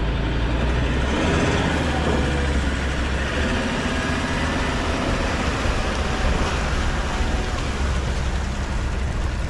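Pickup truck engine running, a steady low rumble.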